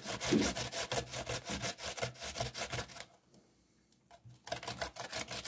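Radish being grated by hand on a metal grater: quick rhythmic scraping strokes, about five a second. The strokes stop for about a second and a half about three seconds in, then start again.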